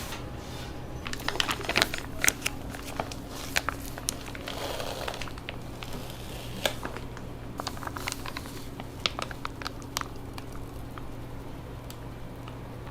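Bungeoppang being made on iron fish-shaped molds: irregular sharp clicks and clacks of metal tools and moulds, with a brief rustle about five seconds in, over a steady low hum.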